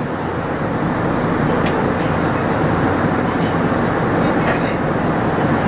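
Steady rumble of the car ferry MV Quinsam's engines and deck machinery, heard from its open car deck, slowly growing louder, with a few faint light ticks.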